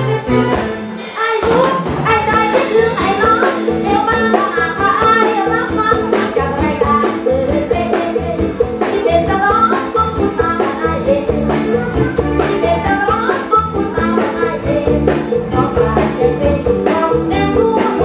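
Women singing a Thai song in turn into microphones over an amplified backing track with a steady drum beat.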